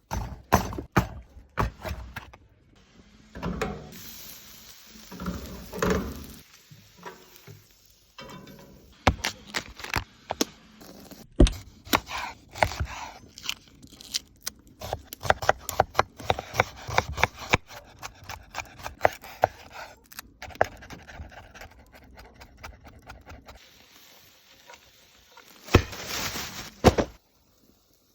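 Food preparation handling: a long run of sharp clicks and knocks of hard objects against each other, with scraping in between and a louder rushing noise for about a second near the end.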